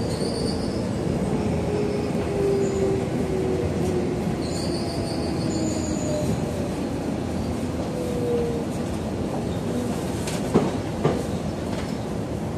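Tobu 70000 series electric train braking into a station, heard from the driver's cab: the traction motors' whine falls steadily in pitch over the rumble of the wheels, with thin high squeals from the wheels or brakes. Two sharp knocks come near the end as the train draws to a stop.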